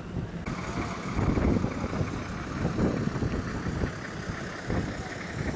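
Engines of truck-based open-sided buses running, a rough steady engine noise with uneven swells that comes in abruptly about half a second in.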